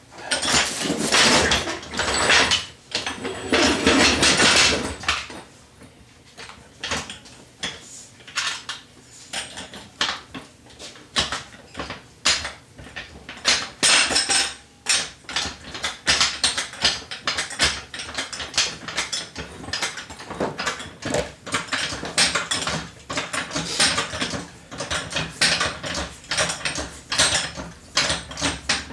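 Metal hand tools and parts clinking and clanking against each other and the four-wheeler's front wheel hub: a long run of short knocks several a second, with louder rattling stretches in the first few seconds.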